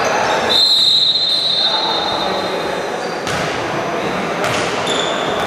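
Basketball shoes squeaking on a hardwood gym floor: a long high squeal about half a second in and a shorter one near the end, over the general noise of play.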